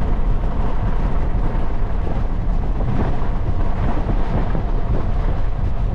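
Steady low rumble of strong wind buffeting the microphone close to a tornado's circulation, over the sound of a vehicle moving.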